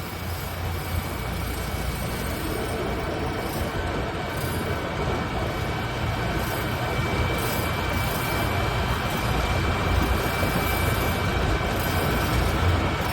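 Preet 987 combine harvester on the move: its diesel engine runs with a steady low drone, with a constant thin high whine above it.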